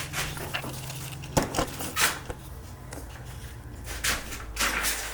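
Handling noises of tools and door hardware: a few short knocks, clicks and scrapes as parts are picked up and set down.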